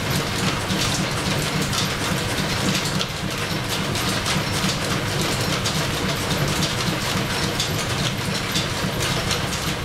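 Belt-driven, line-shaft-powered engine lathe running, spinning a crankshaft in its chuck and steady rest while a pilot hole is bored in its end. A steady mechanical running noise with a low hum and a rapid, irregular clatter of ticks.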